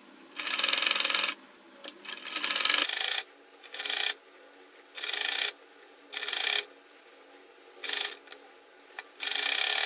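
Sewing machine stitching in about seven short runs, stopping and starting between them as the fabric is turned to follow a curved folded edge.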